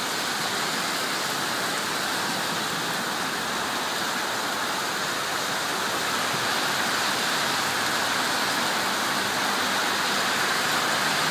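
Heavy summer rain pouring onto a city street, a steady hiss and splashing that grows a little louder about halfway through, with cars driving along the wet road.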